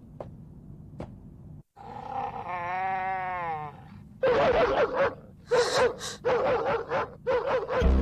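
A monstrous cyborg's voice over a low rumble: one long groan about two seconds in, rising then falling in pitch, then from about four seconds a run of short, harsh grunts.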